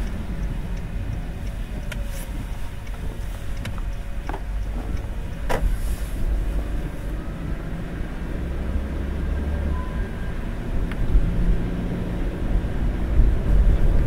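Car driving on a wet road in sleety rain: a steady low rumble of engine and tyres, with a few sharp clicks scattered through it.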